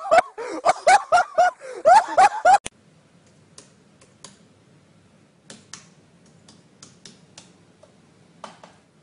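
Loud laughing in quick, rapid bursts for the first two and a half seconds, then faint typing on a computer keyboard, a few scattered keystrokes.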